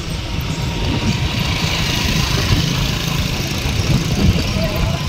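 Motor scooter's small engine running while riding along a road, with wind rumbling on the microphone.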